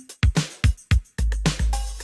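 Synthwave drum-machine beat playing, built from vintage LinnDrum, DrumTraks, TR-707 and TR-808 samples: quick kick, snare and short pitched drum hits. A bit over a second in, a long deep bass-drum boom sounds under a cymbal wash.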